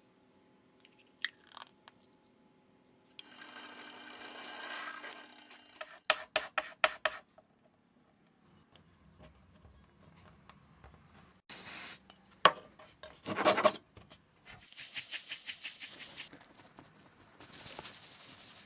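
Hand work on wood: rubbing strokes, a quick run of about five sharp taps, a single sharp knock, and later fast, rhythmic rasping strokes.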